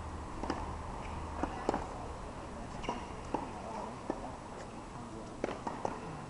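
Tennis balls being hit by rackets and bouncing on the courts: sharp pops at irregular intervals, some louder than others, over a steady low background hum.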